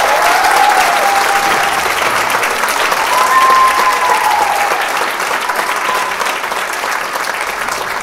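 Audience applauding loudly, with a few cheers, easing off slightly toward the end.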